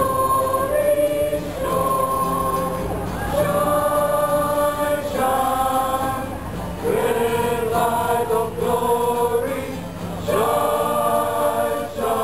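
Mixed choir of men and women singing a Christmas carol together, in long held notes that change to a new phrase every couple of seconds.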